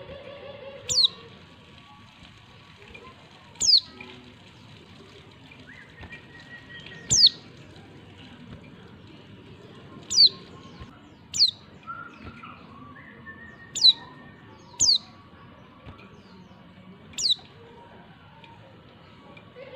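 Female white-eye (pleci) giving eight short, sharp calls, each sweeping steeply down in pitch, at irregular gaps of one to three seconds. It is the call that is played to provoke male white-eyes into answering and singing.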